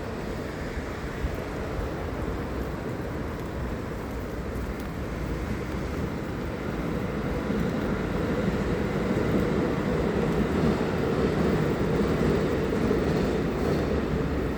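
Steady rumbling noise of riding a bicycle along a street, growing louder in the second half.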